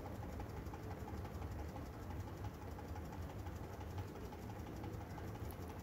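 Small homemade Manson hot-air engine with a glass piston running steadily on its own: a quiet, rapid, even clicking from the piston and linkage as the flywheels turn, over a low hum.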